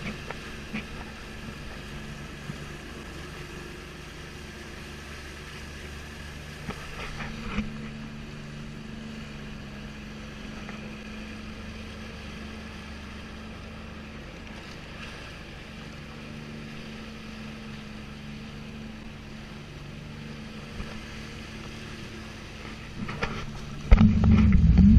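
Sea-Doo jet ski engine idling steadily, then revving up sharply about a second before the end.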